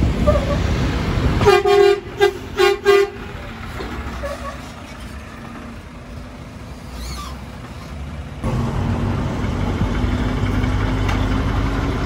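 A truck horn honks one longer blast and then three quick short toots, about a second and a half in. A heavy diesel truck engine runs under it at the start and again from about eight seconds in.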